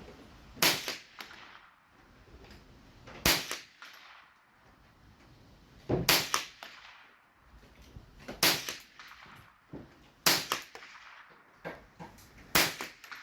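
Ruger 10/22 Target semi-automatic .22 LR rifle firing six shots, one every two to three seconds, with fainter small clicks between them.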